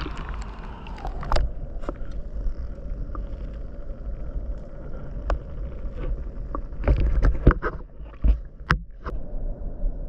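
Steady low rumble of the sea and wind on the microphone, with scattered knocks and clicks and a cluster of them about seven seconds in.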